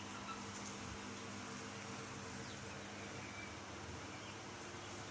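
Faint poultry-house ambience: a steady low hum and hiss with a few faint, scattered chicken calls.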